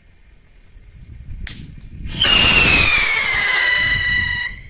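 A whistling firework goes off: a short click, then a loud hissing rush with a shrill whistle that slides down in pitch and holds for about two seconds before cutting off.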